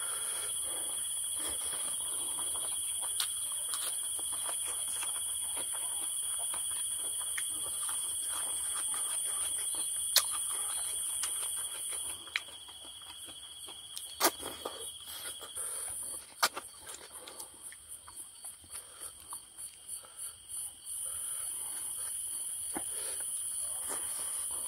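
Steady high-pitched insect chorus at two pitches. About halfway through it thins out, then pulses rapidly for a few seconds before steadying again. Over it come a few sharp clicks and faint clicking noises of someone eating.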